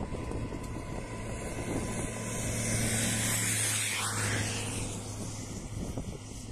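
A vehicle passing by on the road, swelling and fading away, loudest about three seconds in, over wind gusting on the microphone.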